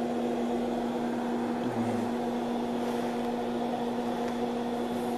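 Steady electrical hum from a TIG welding set: one buzzing tone with fainter overtones above it, unchanging throughout.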